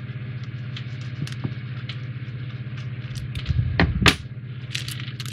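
Small plastic parts bags being handled and opened, with scattered light clicks and crinkles and a louder rustle and knock about four seconds in, over a steady low hum.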